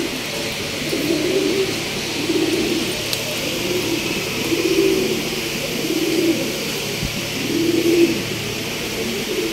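Several racing pigeons cooing, their overlapping low, warbling coos coming about once a second.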